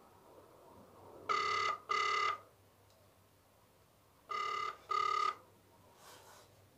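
Phone ringback tone played through the handset's speaker: two double rings, each a pair of short buzzing beeps, about three seconds apart, as an outgoing call rings at the other end.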